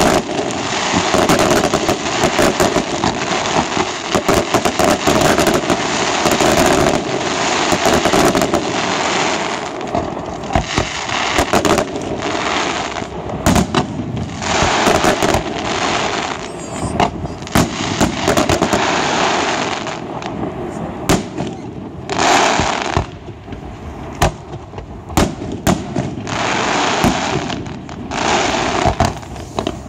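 Fireworks display: a loud, near-continuous barrage of aerial shells bursting, with sharp bangs following close on one another and the pace easing a little about two-thirds of the way in.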